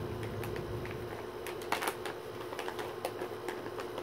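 Plastic treat bag being torn open and crinkled by hand: irregular sharp crackles and clicks, loudest about halfway through, over a faint steady hum.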